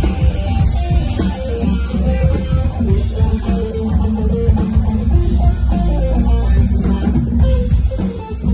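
A live rock band playing loudly through a PA: electric guitar lines over bass guitar and a drum kit, heard during a sound check.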